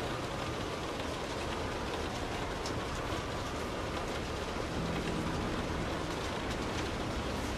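Steady rain falling on a car's roof and windows, heard from inside the cabin, an even hiss with scattered sharper drop ticks. A faint low hum comes in briefly about five seconds in.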